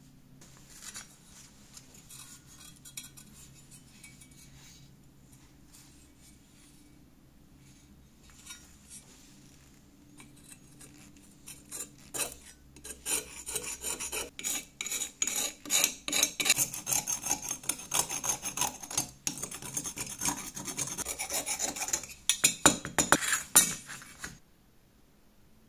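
Screwdriver tip scraping rust off a rusty pressed-steel toy Jeep windshield frame in quick repeated strokes. Only light handling clicks come first; the scraping starts about halfway through and stops abruptly near the end.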